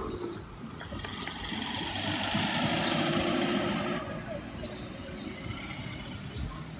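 A bus passing close by, its engine and tyres growing louder from about two seconds in and dropping off suddenly about four seconds in. Voices in the background.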